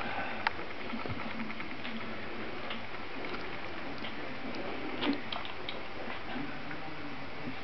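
Litter of young Grand Basset Griffon Vendéen puppies stirring: small scattered clicks and faint squeaks over a steady hiss, with a sharper squeak about five seconds in.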